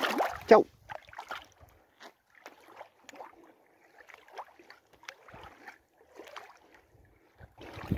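A small boga splashes in shallow river water as it is let go from the hand. Then come faint, irregular splashes and lapping of the water at the shore.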